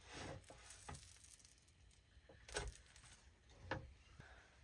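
Very faint cooking sounds: a few light taps and scrapes of a silicone-tipped spatula on a nonstick griddle pan as grilled cheese sandwiches are lifted off, over a faint sizzle.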